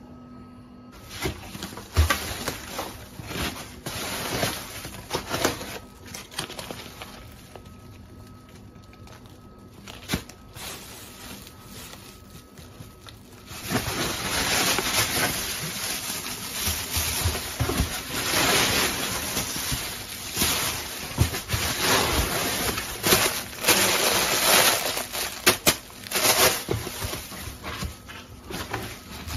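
Plastic grocery bags rustling and crinkling as groceries are unpacked by hand, with a few knocks of items being handled. The rustling grows louder and denser about halfway through.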